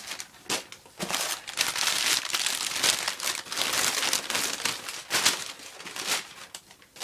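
Crumpled paper packing being handled and pulled about inside a cardboard box: a run of irregular crinkles and rustles, starting about a second in and easing off near the end.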